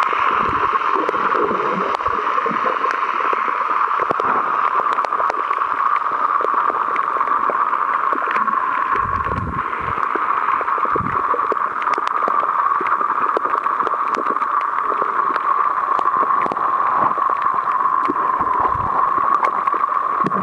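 Underwater ambience from a camera held below the surface on a shallow reef: a steady rushing hiss with many scattered sharp clicks and a few low thuds.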